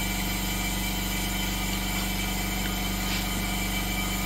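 Steady machine hum with a few fixed tones, unchanged throughout, and a couple of faint small ticks.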